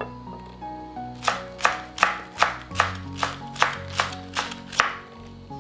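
Chef's knife chopping green onions on a wooden cutting board: about ten quick, even strokes, roughly three a second, starting about a second in and stopping shortly before the end, over background music.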